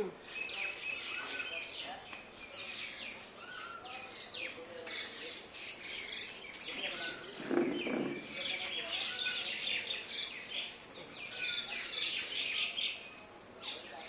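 Birds chirping and calling in short, quick notes, scattered throughout as they gather at scattered food, with one louder, lower sound about halfway through.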